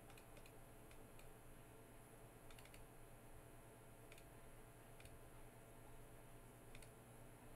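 Near-silent room tone with a low hum, broken by about ten faint, short clicks scattered irregularly, like the clicks of computer input devices at a desk.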